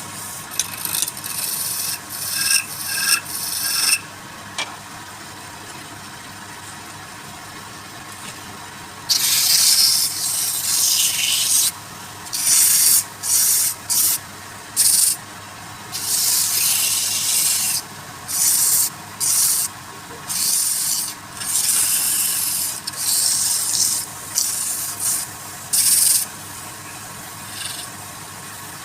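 Wood lathe running with a steady hum while a tool or abrasive is pressed against the spinning workpiece, giving repeated hissing, rasping bursts of half a second to two seconds each. There are a few in the first four seconds, a pause of several seconds with only the lathe, then many in close succession from about nine seconds in.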